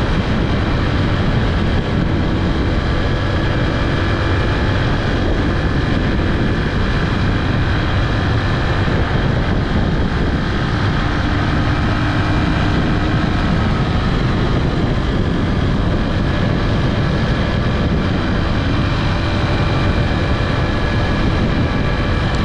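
Honda XR125 single-cylinder motorcycle engine running on the move, its pitch drifting a little with the throttle, over a constant low rumble of wind and road noise on the GoPro's microphone.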